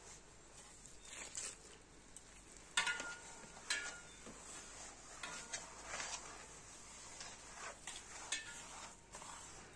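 A hand mixing and rubbing lumpy acorn flour in an aluminium basin: soft scraping rustles, with a few short metallic clinks, the clearest about three and four seconds in.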